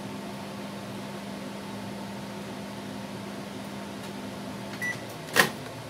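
Daewoo microwave oven running with a steady hum while it heats food. Near the end there is a short beep, the hum stops, and the door latch gives a loud click as the oven is opened mid-cycle.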